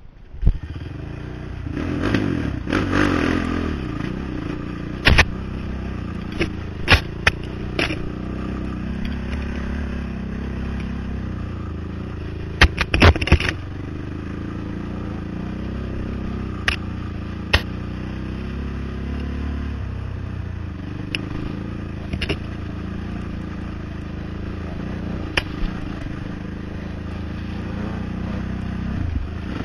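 ATV engine running under way on a rough trail, revving up and falling back about two to four seconds in, with sharp knocks and rattles at irregular moments throughout.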